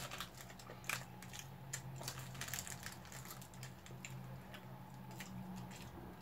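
Faint eating sounds: quiet chewing and small clicks and rustles of a plastic snack wrapper being handled, over a low steady hum.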